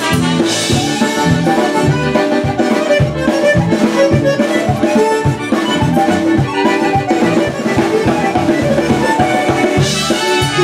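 Live polka band playing an instrumental passage: concertina and piano accordion carry a rising and falling melody over bass guitar and a steady drum-kit beat.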